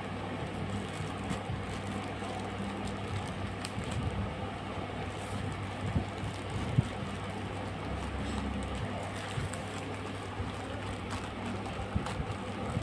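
Plastic courier mailer bag crinkling and rustling as it is handled and opened by hand, with scattered sharp crackles over a steady low hum.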